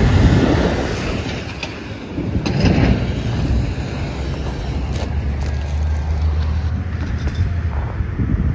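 Road traffic: a steady low rumble, with vehicles swelling past near the start and again about two and a half seconds in.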